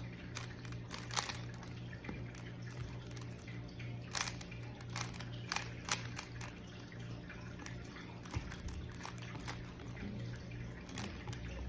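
Plastic Rubik's Cube layers being turned by hand: irregular sharp clicks and clacks as the faces snap round, over a steady low hum.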